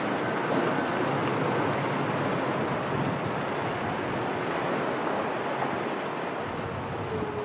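Steady noise of city street traffic, an even wash of sound with no distinct events.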